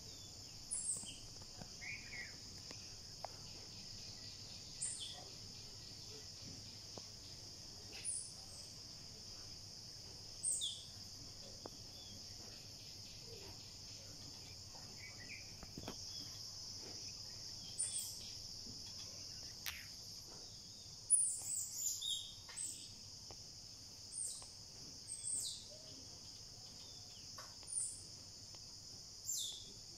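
A steady, high insect chorus over forest, with short, high, falling bird chirps every few seconds, busiest about two-thirds of the way through.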